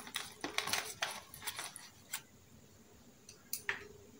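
Small makeup items clicking and rustling against each other as they are pushed into a zippered cosmetic pouch: a flurry of light clicks over the first two seconds, then a few scattered ones.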